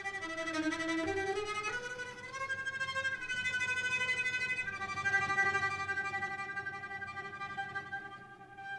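Solo cello playing a slow melody: bowed notes climbing step by step over the first few seconds, then a long held note that fades near the end.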